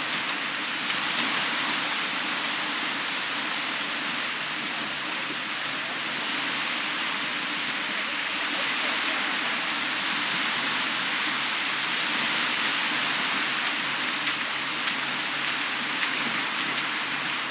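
Small waves breaking and washing up a flat sandy shore, a steady, even hiss of surf.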